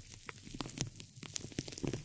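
Close-miked ASMR trigger sounds: a dense run of irregular crackling clicks over soft low thuds.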